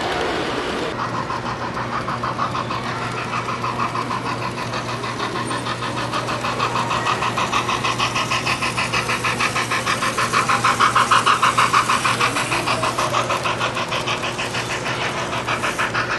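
HO scale model steam train running on the layout, a fast, even rhythmic pulsing over a steady low hum, loudest about eleven seconds in as it comes closest.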